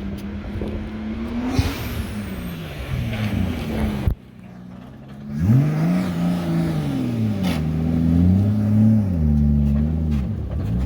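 Big-turbo Toyota 2JZ inline-six in a Nissan Cima being revved up and down repeatedly. The sound breaks off abruptly about four seconds in, then several rises and falls in revs follow.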